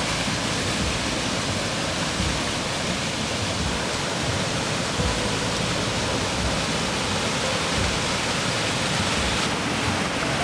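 Steady rush of a mountain waterfall, an even roar of falling water with no pauses.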